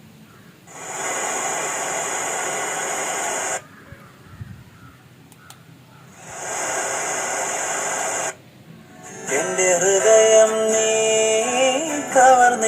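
FM radio in a cheap security alarm and audio unit, played through its small speaker: two bursts of static hiss while searching for a station, then a station comes in about nine seconds in, playing a song with singing.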